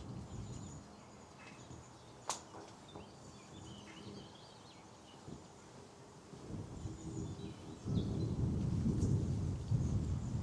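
Small birds chirping and calling in short, high notes, with one sharp click about two seconds in. From about eight seconds a loud, low rumble of wind buffeting the microphone takes over.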